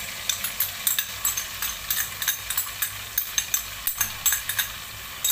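Mutton, spices and curd sizzling in hot oil in a steel pressure cooker on a low gas flame: a dense, irregular crackle of spitting oil.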